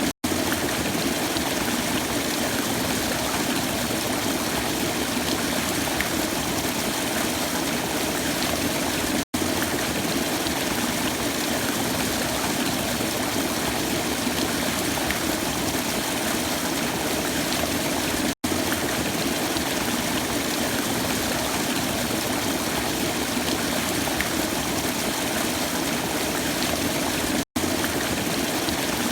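Waterfall: a steady rush of falling water, broken by a split-second dropout to silence about every nine seconds, the seams of a looped recording.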